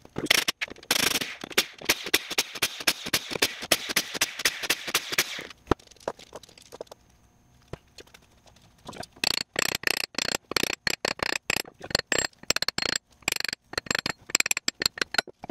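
Kobalt 24V cordless impact wrench hammering out the ring-gear bolts on a transmission differential, a rapid rattling run of about five seconds as the bolts break loose. After a pause, a run of hammer blows on the differential to knock the ring gear off.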